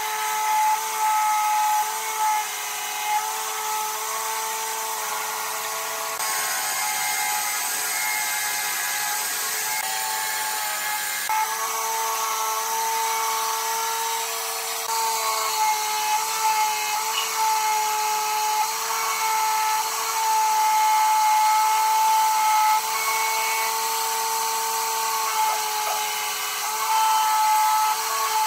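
An electric power tool's motor running with a steady whine while working wood. The tone shifts a couple of times.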